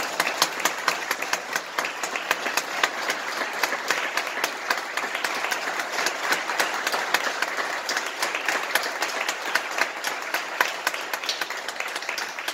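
Concert hall audience applauding: dense, steady clapping from many hands, with a few sharper individual claps standing out.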